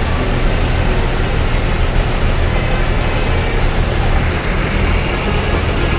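A large bus's diesel engine running close by with a steady low rumble.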